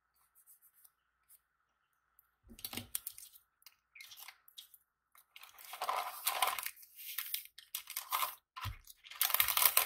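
Sheet of compounding paper being folded and crumpled by hand, crinkling in irregular bursts that are loudest about six seconds in and near the end, with a couple of soft knocks on the table.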